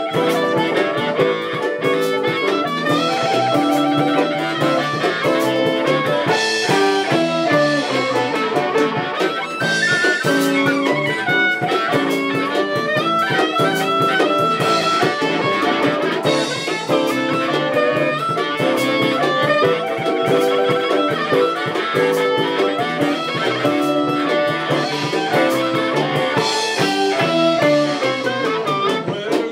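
Live band playing an instrumental passage: electric guitars strumming and picking over a drum kit, with a lead melody line on top.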